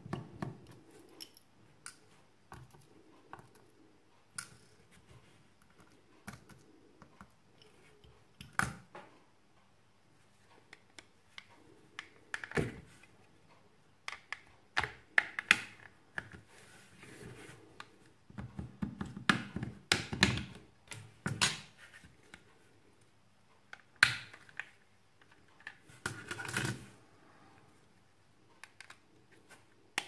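Irregular small plastic clicks, taps and snaps as a Samsung B355E keypad phone is taken apart: a small screwdriver working the back-housing screws, then the plastic case being pried open. Clusters of louder clicks come through the middle and latter part.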